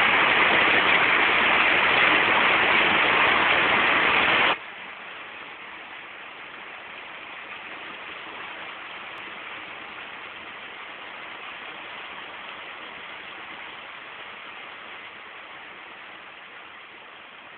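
Steady rushing noise, loud for the first four and a half seconds, then cutting down abruptly to a faint hiss that slowly fades.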